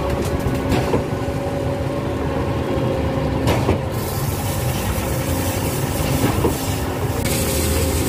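Putzmeister truck-mounted concrete pump running steadily during hopper cleanout after the pour, with a sharp clank about every three seconds. A hiss joins near the end.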